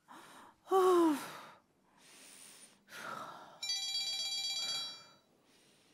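A woman's short gasp with a falling voice, among breathy exhalations. Then a mobile phone ringtone plays for about a second and a half as an incoming call rings.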